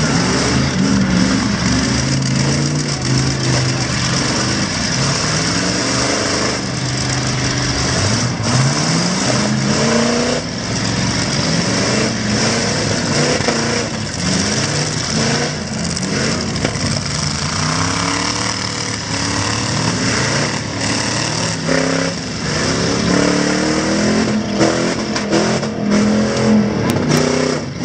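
Several demolition-derby trucks' V8 engines revving hard over and over, their pitch repeatedly rising and falling, with a few short thuds among them.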